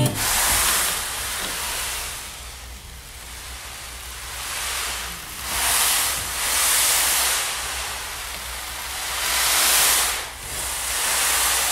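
Sea-wave sound, a rushing hiss that swells and ebbs like surf washing in and out, several times over, with a low rumble underneath.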